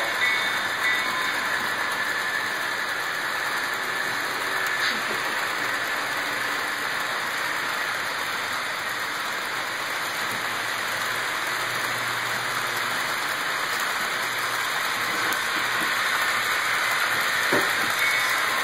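HO-scale model coal train of hopper cars rolling along the layout's track, a steady rolling hiss of many wheels on the rails.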